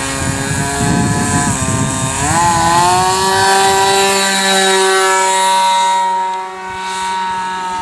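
RC model airplane's engine running up under throttle for takeoff: its pitch rises about two seconds in and then holds steady as the plane lifts off and climbs, easing slightly near the end.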